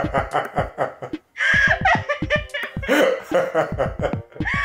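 Laughter in three runs of rapid pulses, with brief breaks between them.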